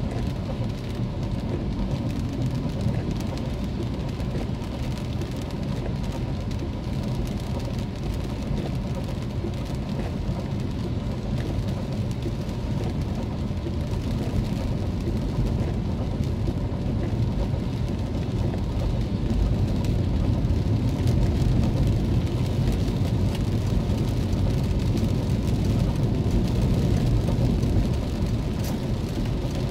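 Car driving in rain, picked up by a dashcam: a steady low rumble of engine and tyres with the hiss of rain on the car. It gradually gets a little louder about halfway through.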